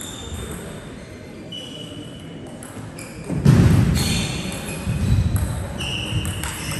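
Table tennis rally in a sports hall: the celluloid ball clicking off bats and table, and short squeaks of shoes on the hall floor. Loud bursts of sound come about halfway through and again shortly after, as the winning point ends.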